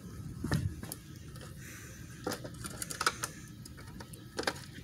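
Scattered light clicks and knocks from a plastic upper intake manifold being picked up off concrete and turned over by hand. There is a duller knock about half a second in, then several sharper clicks near the end.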